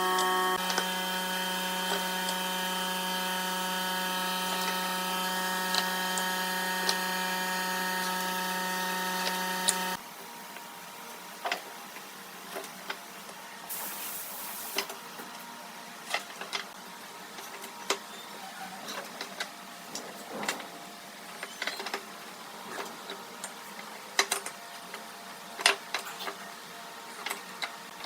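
A small motor running with a steady hum for about ten seconds, then stopping abruptly. After that come scattered light clicks and knocks of handwork.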